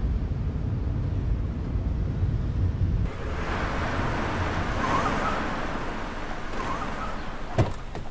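Low, steady rumble of a car cabin while driving, cut off about three seconds in by an outdoor hiss as a taxi pulls up, with a sharp click near the end.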